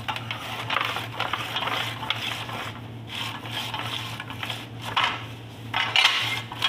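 Commercial continuous-feed vegetable slicer running with a steady low hum, its spinning disc blade slicing green bell peppers into strips in repeated bursts of cutting noise as the pieces drop onto a metal tray. The loudest burst comes about six seconds in.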